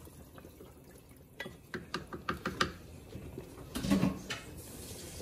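A wooden spatula clinks several times in quick succession against a large aluminium cooking pot, then knocks once more loudly about four seconds in, with tomato broth sloshing as it is stirred.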